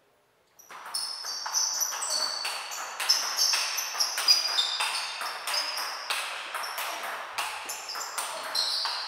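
Table tennis rally: the ball clicking off the players' bats and bouncing on the Stiga table in quick, irregular succession, each hit with a short, bright ring. It starts about half a second in.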